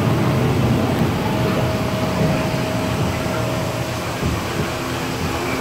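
Steady rumbling ride ambience inside a dark-ride boat scene, with a faint steady hum that comes and goes.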